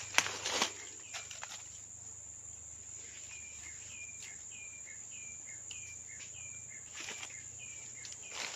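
Outdoor swamp ambience: a steady high insect drone, with a small animal's short call, a higher note stepping down to a lower one, repeated about twice a second for a few seconds in the middle. A few rustling steps at the start.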